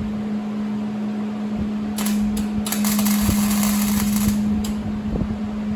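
Welding machine humming steadily, then about two seconds in a welding arc crackles and sizzles for roughly two seconds with a couple of short breaks, stopping with one brief spit of arc just after.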